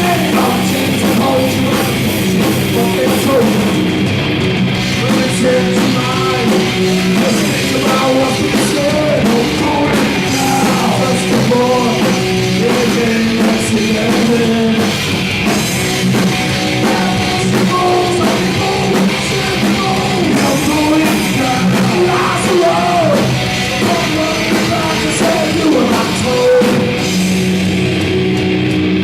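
Live rock band playing loudly, with distorted electric guitar, a drum kit and a sung lead vocal.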